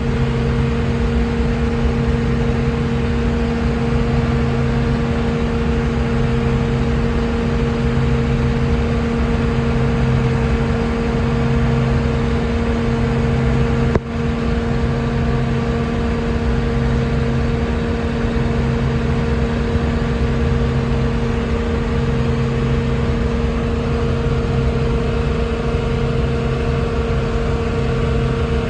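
Combine harvester running steadily while harvesting wheat, heard from inside the cab: a dense mechanical drone with a steady hum and a low, pulsing throb. A single short click with a brief drop in the sound comes about halfway through.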